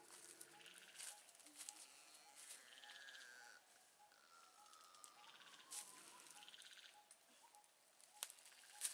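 Near silence: faint outdoor ambience with a soft pip repeating about twice a second and two faint falling calls in the middle.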